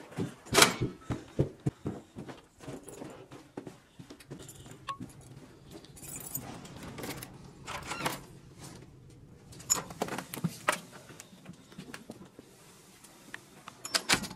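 Footsteps and handling knocks while climbing carpeted stairs, then keys jangling with clicks and knocks at a wooden door.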